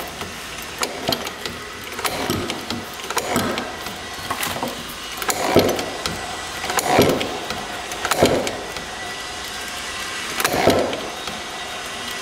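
Kickstart mechanism of a Honda Z50 engine, cycled by hand with the side cover off. It makes a series of short mechanical whirs, one every second or so, as the gears and the new clutch spin with each stroke. The kickstart is working on the freshly reassembled cases.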